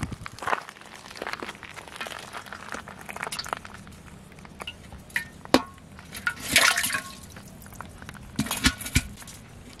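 Live fish, a carp and an armoured sailfin catfish, thrashing in the water of a metal pot: irregular splashes with sharp clinks against the pot's sides, the loudest a little past the middle and again near the end.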